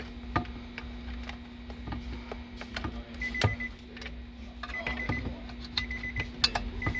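Scattered clicks of parts being handled over a steady low hum. From about three seconds in, an electronic beeper sounds in short bursts of rapid high beeps, about one burst every second or so.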